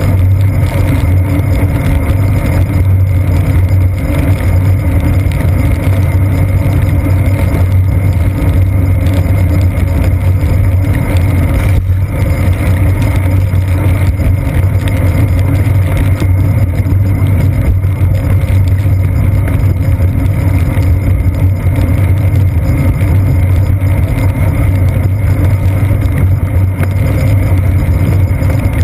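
Steady, loud low rumble of wind and road vibration picked up through a seat-post-mounted GoPro's waterproof housing as the bicycle rolls over wet pavement.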